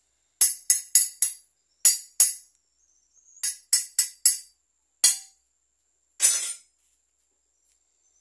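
Hacksaw cutting a steel bar clamped in a bench vise: short, sharp rasping strokes in quick runs of two to four, about three a second, with pauses between runs and one longer stroke near the end.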